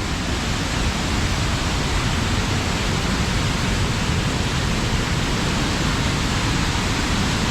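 Steady rush of fast-flowing water from a strong stream.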